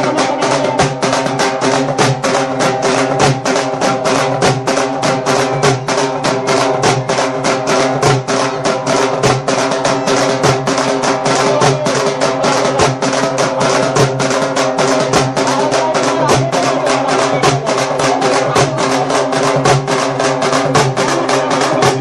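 Music with a fast, even drum beat over sustained instrumental tones.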